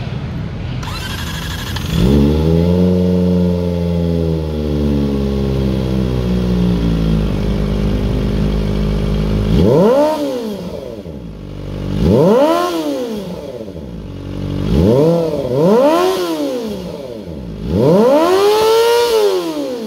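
Kawasaki Ninja ZX-25R's 250 cc inline-four engine through an aftermarket slip-on exhaust, revved on the stand. It idles, is raised about two seconds in to a held rev that slowly sinks back to idle, then gets five quick throttle blips, each rising and falling, the last held longest.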